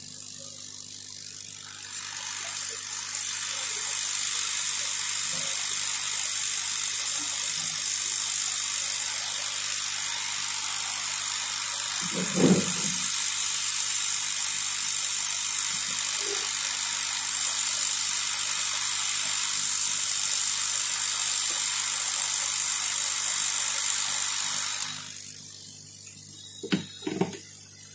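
Hot-air rework gun blowing a steady hiss onto a circuit board to desolder components; the airflow stops suddenly about three seconds before the end. A few soft knocks are heard, one near the middle and a couple near the end.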